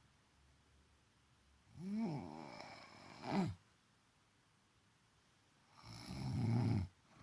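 A woman snoring: two snores about four seconds apart. The first is a rasping snore that ends with a short, sharper rasp; the second, near the end, is lower and rougher.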